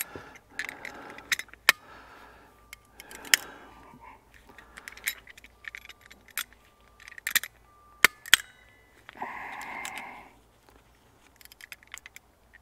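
Small metal hand tools clinking and tapping against a steel bolt with a Torx bit wedged in its head, in a run of sharp, irregular metallic clicks.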